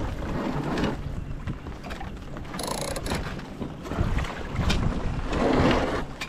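Wind buffeting the microphone over water rushing and slapping against the hulls of a small sailing catamaran under way, in irregular surges.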